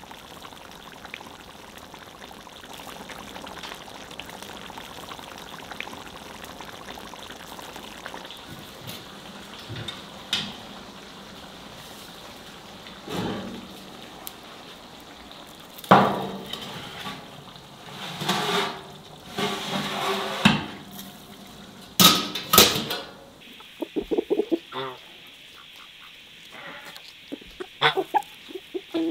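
Tomato sauce simmering and sizzling in a pan with a steady hiss, broken by several loud sudden clattering sounds. In the last few seconds, farm poultry give short pulsing calls among a few clicks.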